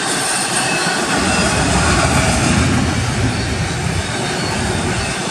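Double-stack container train's well cars rolling past on the track: a steady, loud roar of steel wheels on rails, with a deeper rumble for a couple of seconds in the middle.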